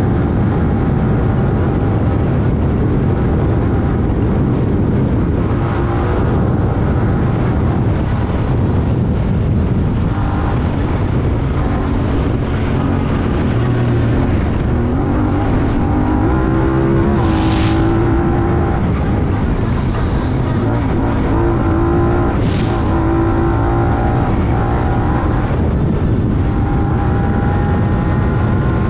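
Honda Talon 1000R side-by-side's parallel-twin engine running hard at race speed on desert dirt, heard from on board, with its pitch rising and falling through the middle as it speeds up and eases off. Two brief sharp bursts of noise stand out in the second half.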